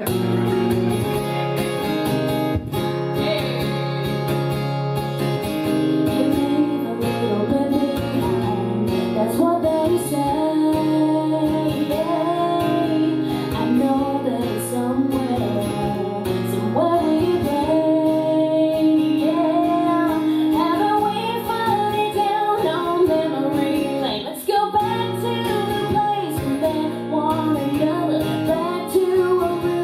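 A woman singing a song live over strummed guitar.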